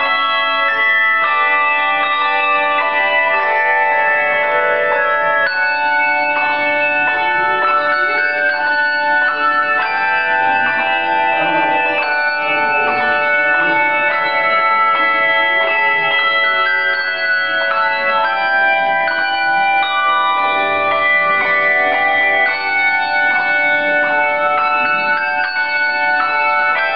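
Handbell choir ringing a hymn arrangement: a steady stream of struck chords of bright, sustained bell tones that ring on and overlap.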